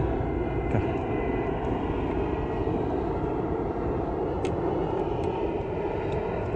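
Steady wind rushing on an action camera's microphone out on open water, with a few faint clicks about two-thirds of the way through.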